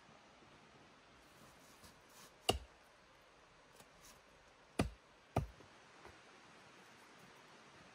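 An axe striking a wooden pole: three sharp knocks, the first on its own and the last two about half a second apart, with a few faint ticks between them.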